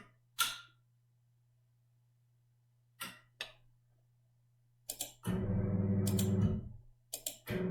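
A few computer mouse clicks, then an electric blind or curtain motor runs with a steady hum for about a second and a half and stops; more clicks follow and the motor starts again near the end, responding to commands sent in quick succession.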